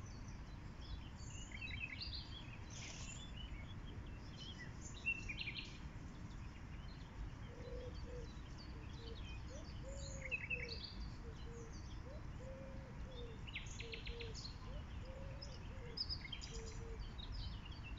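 Birds chirping in short scattered bursts over a steady low outdoor background noise. About halfway through, a run of short, lower curved calls joins in and repeats until near the end.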